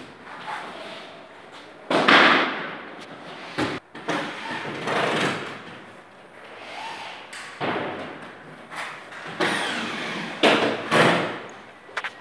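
Drywall installation work: a string of irregular knocks, thuds and scraping noises, each lasting well under a second, with two sharp knocks close together about two-thirds of the way in.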